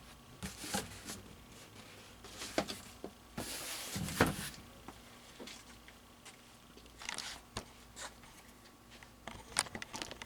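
Packaging being handled: irregular rustles, taps and scrapes of a cardboard box, with the loudest stretch of rustling about four seconds in.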